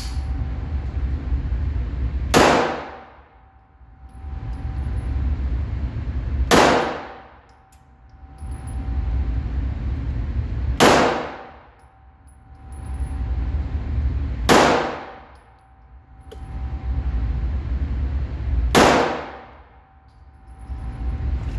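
Five 9mm Glock 48 pistol shots in slow aimed fire, about four seconds apart, with a metallic ring in an indoor range. After each shot the low background noise drops away and slowly swells back up.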